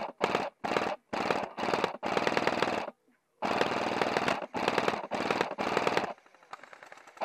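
Airsoft RPK electric gun firing a string of full-auto bursts, each a rapid rattle of shots, about nine bursts in six seconds with brief pauses between, the longest lasting about a second. Near the end it stops and only faint sound remains.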